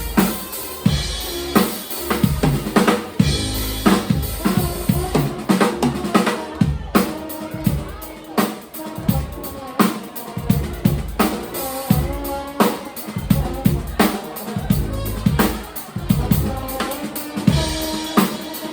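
Live band playing an instrumental passage, with a drum kit beating out a steady rhythm at the front, over sustained pitched notes from the other instruments.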